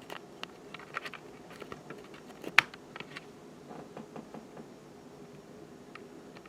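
Fasco Great Room ceiling fan running on low with a steady low hum, under scattered irregular clicks and taps, one sharp louder click about two and a half seconds in.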